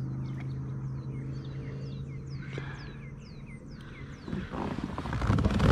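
A bird sings a run of repeated high whistled notes, each sliding downward, over a steady low hum that stops about halfway through. Rustling and clattering handling noises build near the end.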